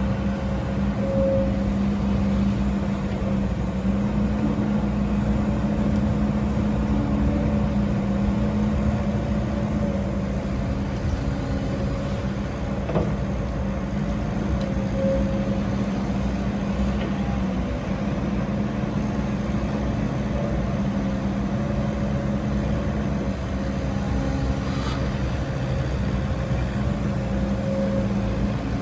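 Heavy diesel engine of earthmoving machinery running steadily, a constant low drone with a higher steady whine over it and a brief tick about 13 seconds in.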